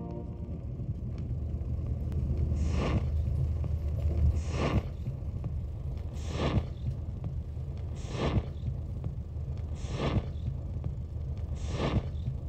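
Turntable stylus riding the run-out groove of a vinyl record at the end of the side: steady low rumble and surface noise, with a click and swish about every 1.8 seconds, once per turn of the record at 33⅓ rpm.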